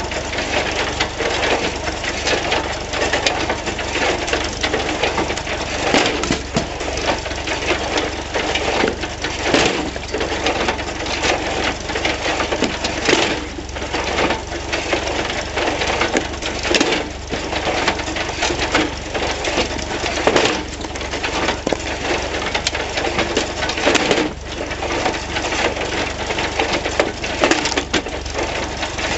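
Wood splitter built from a John Deere 14T hay baler running, its plunger crushing logs with frequent sharp cracks and splintering wood, over a steady low drone of the machinery.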